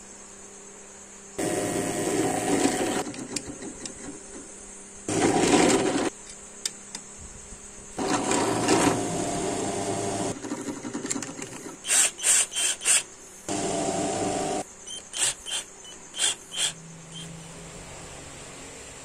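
Power tools working a wooden axe handle in separate bursts, each starting and stopping abruptly. Among them is an electric drill press boring through the wooden handle scales, its motor holding a steady tone. Between the longer runs come several short spurts.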